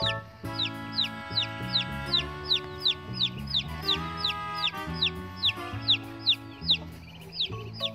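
Chicks peeping in a steady run of short, falling chirps, about three a second, over background music with sustained chords.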